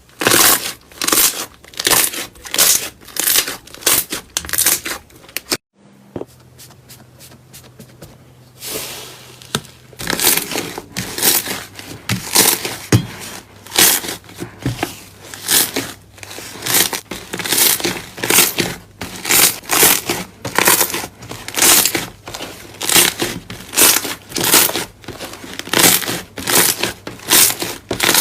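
Slime being squeezed and pressed by hand, giving a crackling crunch over and over, about one to two a second. The crackling breaks off about six seconds in, leaving a low steady hum for a few seconds, and starts again about ten seconds in.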